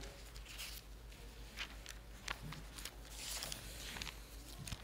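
Faint, scattered ticks and rustles of thin Bible pages being leafed through.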